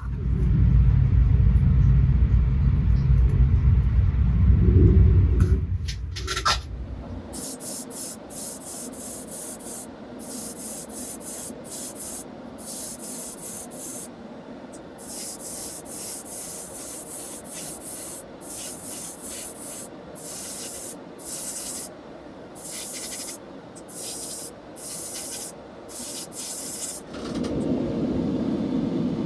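Hand sanding: short, hissy back-and-forth strokes of abrasive on a small part, about one to two a second. The first several seconds hold a low rumble instead.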